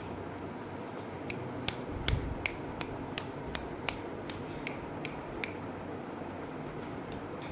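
A run of about a dozen sharp clicks, evenly spaced at roughly three a second, over a steady background hiss.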